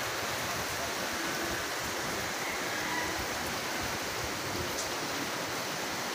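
Steady rushing of a fast-flowing river in flood, its brown floodwater running high and turbulent.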